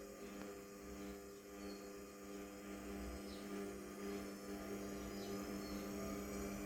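Samsung washing machine running with a faint, steady hum.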